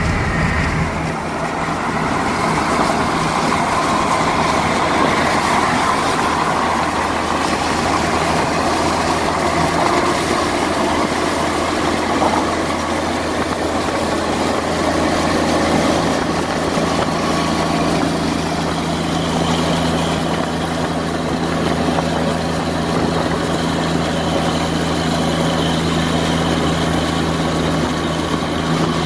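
Highway driving noise heard from inside a moving car alongside a semi truck: a steady rush of tyres and wind with a low, even engine drone.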